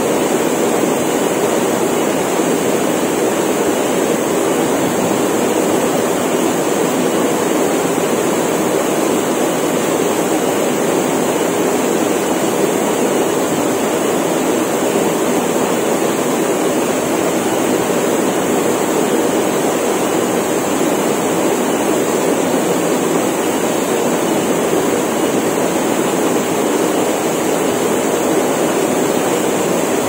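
Small waterfall plunging into a rock pool: a steady rush and splash of falling water, with an unbroken high cicada drone over it.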